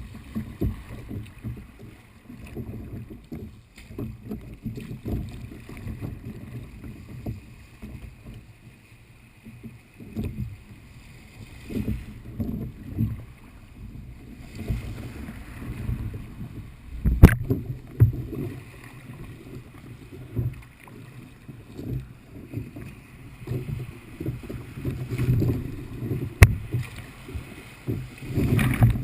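Kayak paddling through light chop: water sloshing and splashing against the hull in uneven surges with the paddle strokes, and some wind on the microphone. Two sharp knocks stand out, one past the middle and one near the end.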